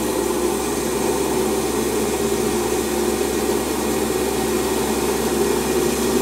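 Small metal lathe running steadily, its motor and gearing giving an even drone, as the tool takes a light turning cut to bring down the diameter of a small spigot.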